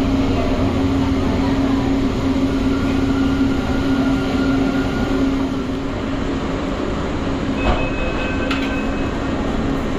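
Inside a metro train car: a steady electric hum as the train pulls into a station and comes to a stop. About 7.5 seconds in, a clunk and a short high-pitched door chime sound as the doors open.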